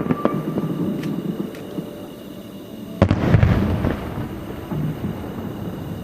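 Fireworks bursting overhead. The rumble of one burst fades in the first second, then a sudden loud boom about three seconds in rolls away in a low echo.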